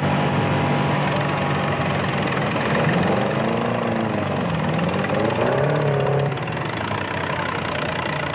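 Car engines of demolition derby cars idling together, with an engine revved up and down a few times in the middle before dropping back to idle.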